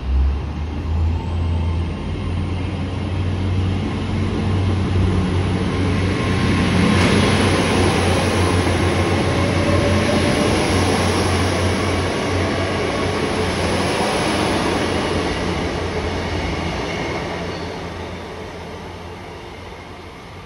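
A train running through the station, its rumble building to a peak about seven seconds in and fading away near the end, with a faint high whine over it.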